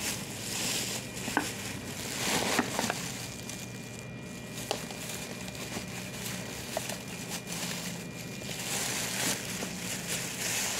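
Plastic crinkling and rustling with scattered light clicks and knocks as a capsule blender and its plastic wrapping are handled.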